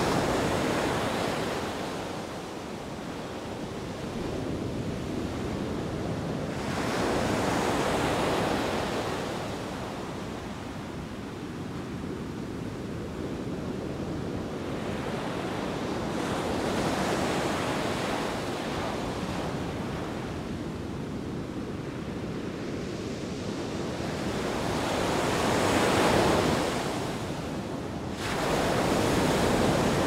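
Sea surf breaking and washing up a beach, about five waves swelling and ebbing, the loudest about 26 seconds in and another surging just before the end.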